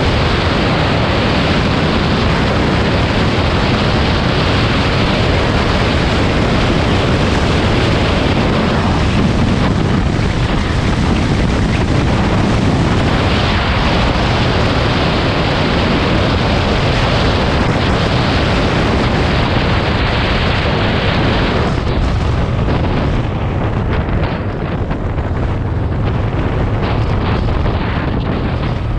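Strong wind rushing and buffeting over the microphone: a loud, steady rumble with no engine tone or separate impacts standing out.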